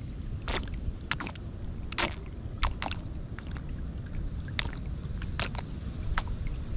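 A person slurping water straight from a shallow stream with his mouth: a run of irregular sharp sips and small splashes, close to the microphone, over a low steady rumble.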